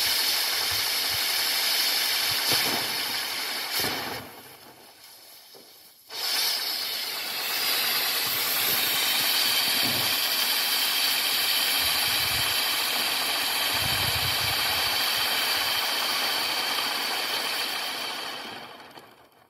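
Afac Mega Sol firework sun wheel (60 g net explosive) spinning and hissing loudly as its drivers spray sparks. The hiss falls away for about two seconds some four seconds in, then starts again abruptly, and fades out near the end as the wheel burns out.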